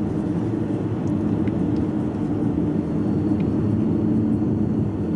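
Steady road and engine rumble inside a moving car's cabin, an even low drone without change.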